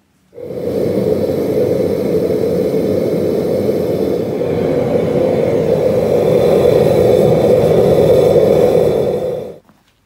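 Propane burner of a small 2 kg gas melting furnace running: a steady rushing noise that starts suddenly and cuts off just before the end.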